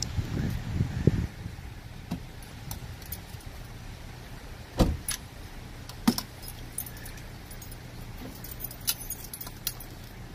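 Metal crutches being handled and clinking, their tips knocking and clicking on icy, snow-dusted pavement. A car door shuts with a thud about five seconds in.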